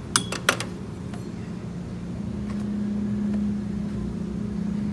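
Two sharp metallic clacks in quick succession as a stainless magnetic parts tray is set onto the steel tool cart, followed by a steady mechanical hum with a low tone that grows louder about two seconds in.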